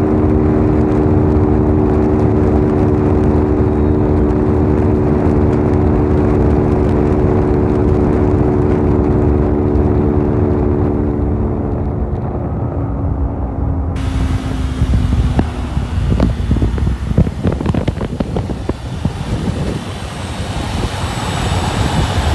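Honda CG 160 Titan's single-cylinder engine running steadily at high revs near top speed, under heavy wind rush. About twelve seconds in the engine note fades away as the bike slows, and wind buffeting on the microphone takes over in uneven gusts.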